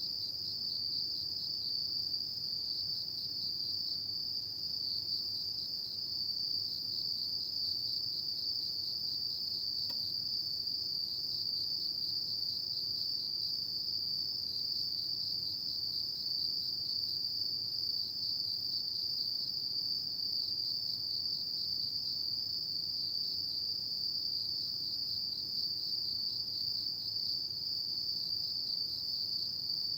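Night chorus of autumn crickets: a continuous high-pitched trilling that pulses rapidly and never lets up.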